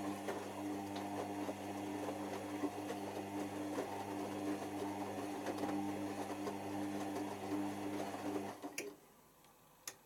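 Beko WMA510 washing machine's drum motor turning the drum through a pre-wash tumble, a steady motor hum with the laundry rustling inside. The motor stops about eight and a half seconds in, and two sharp clicks follow near the end.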